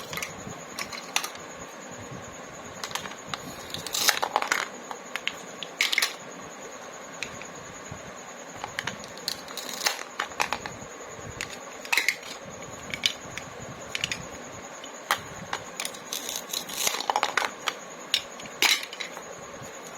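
Plastic toy fruit and vegetable pieces being cut apart and handled, giving irregular sharp plastic clicks and clacks, about one every second or two, with small flurries now and then.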